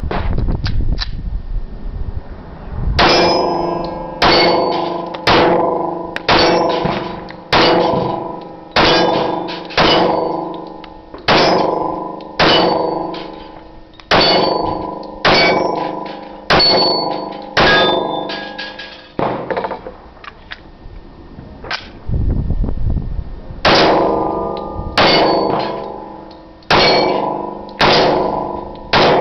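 Glock 21 .45 ACP pistol fired in a steady string of shots, roughly one a second. Each shot is followed by the ringing clang of a steel target plate being hit. There is a pause of about four seconds about two-thirds through, then the shooting and ringing resume.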